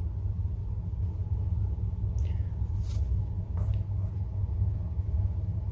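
Low, steady background rumble, with a few faint clicks about two, three and three and a half seconds in.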